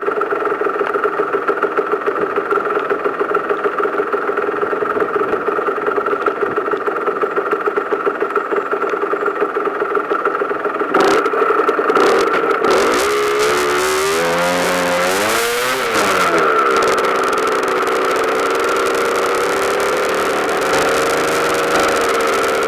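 Rieju RS2 Matrix Pro motorcycle engine idling with a steady pulse, then, about halfway through, revving up and pulling away, its pitch rising and dropping a few times, before running steadily under way with wind noise.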